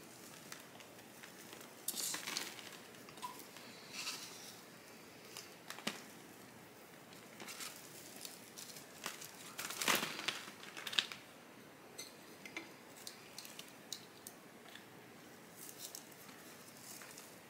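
Hands handling a plant pot, moss-pole base and roots: faint, scattered rustling with light clicks and knocks, a louder cluster about ten seconds in.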